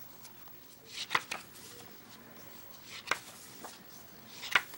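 Pages of a large paper artbook being turned by hand: three page turns about a second and a half apart, each a brief rustle of paper ending in a sharp flap as the page lands.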